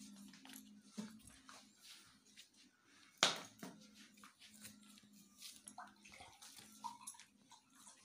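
Indoor room noise: a low steady hum with scattered small clicks and knocks as someone walks through the house, and one sharp knock about three seconds in.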